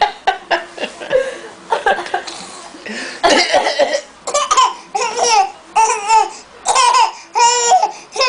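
A baby's short fake coughs mixed with laughter. Over the second half, a string of rhythmic 'ha-ha' laughs rings out.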